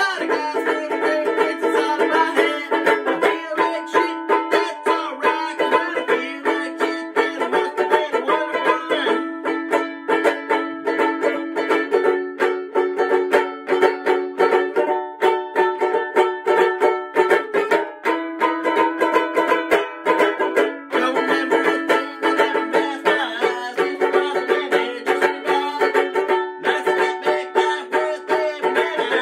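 Banjo ukulele strummed fast and steadily, with a man singing along into the microphone.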